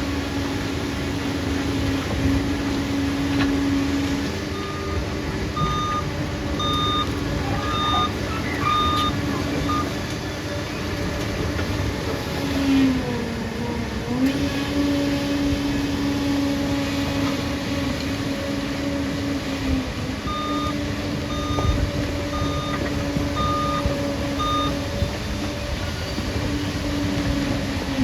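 Liebherr bulldozer's diesel engine running steadily, its note dipping briefly about halfway through, while its reversing alarm beeps in two runs of short, evenly spaced beeps as the dozer backs up.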